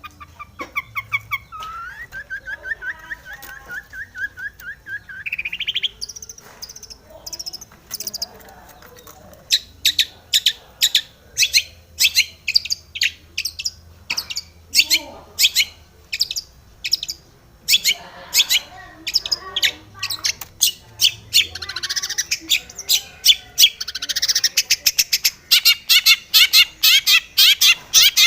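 Long-tailed shrike singing: a varied song that opens with a fast trill rising in pitch, then turns to a long run of sharp, harsh repeated notes, roughly two to three a second, coming faster and denser near the end.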